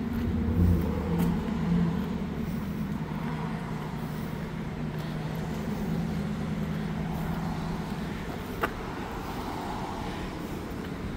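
Steady low engine hum of a running motor vehicle, with two low thumps in the first two seconds and a sharp click near the end.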